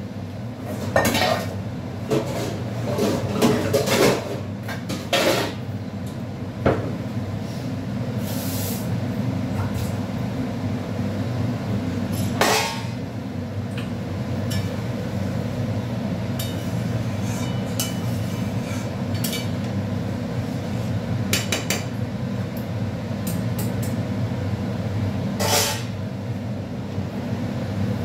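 Cooking pots and utensils clattering and knocking, with several clinks in the first few seconds and a couple of single knocks later, over a steady low hum.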